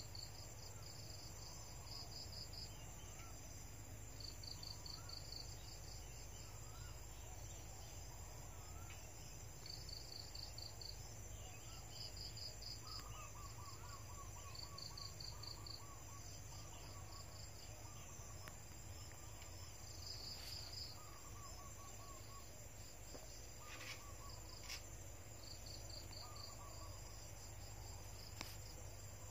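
Insects chirping in short high-pitched pulsed bursts that repeat every second or two, with fainter bird-like chirps in short series lower down and a steady low hum underneath.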